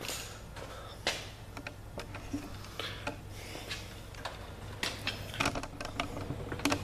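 Scattered light metal clicks and taps of hand tools being handled at an engine block, irregular and a second or so apart.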